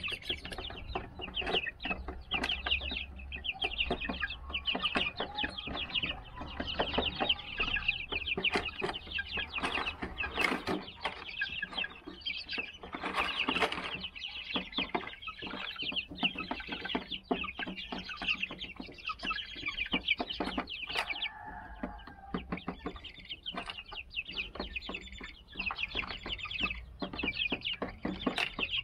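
A flock of 39-day-old Silver Laced Wyandotte chicks peeping continuously, many short high calls overlapping with no break.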